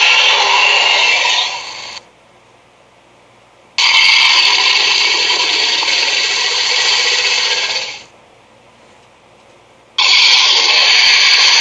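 Cartoon sound effect: a harsh, hissy noise sitting mostly in the upper range. It fades out about two seconds in, returns abruptly a couple of seconds later and fades again, then starts once more near the end, the same effect played repeatedly with short pauses.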